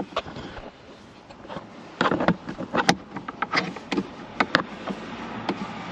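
Scattered clicks and knocks of a screwdriver and hands working on the glove box screws in a car's dashboard, irregular and busier from about two seconds in.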